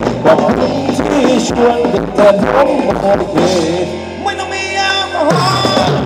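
Live band playing Thai ramwong dance music with a steady drum beat and a sung melody; about four seconds in, a long held note takes over briefly before the beat comes back near the end.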